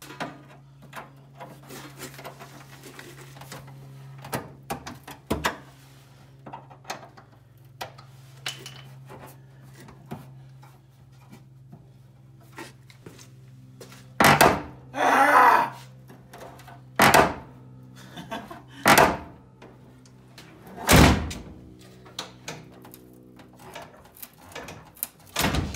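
Fiberglass car fender being handled and pushed into place against its mounting bracket: light clicks and taps, then four loud thunks and a second-long scrape in the second half, over a steady low hum.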